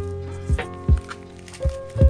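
Background music with a steady beat: held melodic notes over low drum hits about twice a second.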